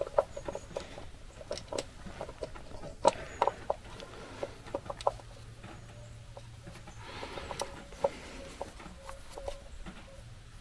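Irregular small clicks and knocks, with a few short squeaks, as ignition leads are worked by hand out of a GAZ-66 distributor cap.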